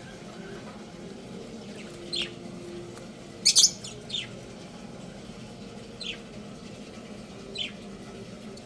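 Young rooster chirping: short, high, falling peeps every second or two, the loudest a quick pair about three and a half seconds in.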